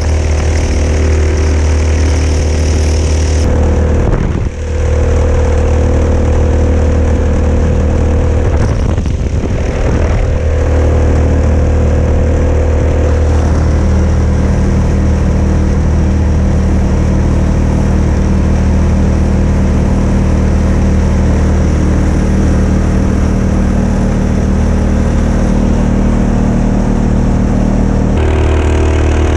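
Mokai motorized kayak's small gas engine running steadily under way through a prototype muffler, holding an even pitch. The level drops briefly about four and a half seconds in and dips again around nine to ten seconds.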